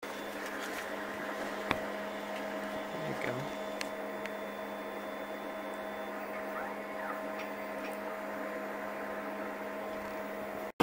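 Steady low hum with a fainter higher tone above it from a Fusion3 F400 3D printer running its filament-loading routine. A single sharp click about two seconds in.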